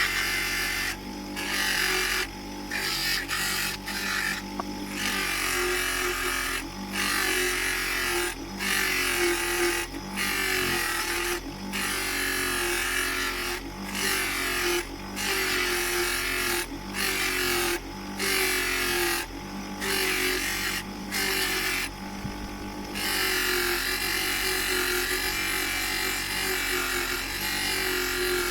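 Electric polishing wheel running with a steady motor hum while a brass grease gun is pressed against it again and again: a hissing rush of buffing that cuts in and out every second or two.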